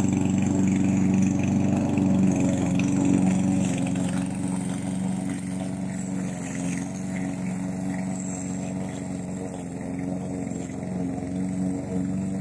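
Gasoline walk-behind lawn mower engine running steadily, a little quieter after about four seconds.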